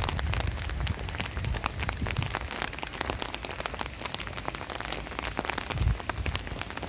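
Steady rain falling on wet pavement, with many individual drops ticking close by. There is a low rumble at the start and again near the end.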